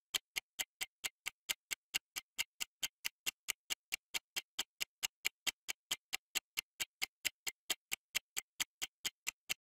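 Countdown-timer sound effect: an even clock ticking, about four ticks a second, that stops shortly before the end.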